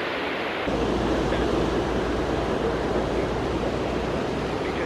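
Ocean surf washing over a rocky shore, a steady rushing hiss, with wind rumbling on the microphone for most of the stretch.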